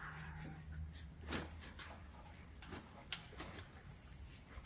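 Faint scattered clicks and light knocks over a low steady hum.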